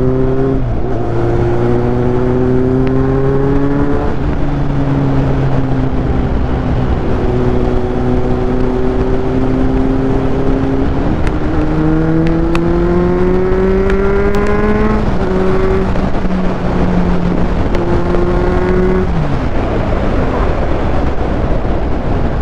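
Kawasaki Z800 inline-four engine under way, with heavy wind noise. It holds a steady pitch, then climbs under acceleration, and its pitch drops suddenly about 4 s and 15 s in, as at a gear change. Near the end the engine note falls away as the throttle is rolled off.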